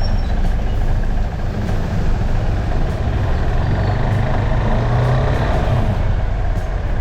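KTM 390 Adventure's single-cylinder engine running as the motorcycle is ridden, under steady road and wind noise.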